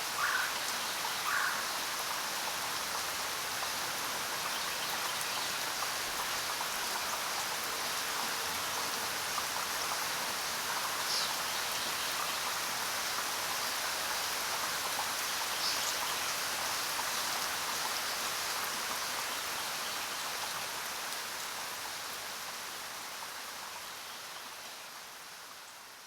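Steady rain falling, an even hiss that fades out over the last few seconds. A few faint short chirps stand out, near the start and twice more later.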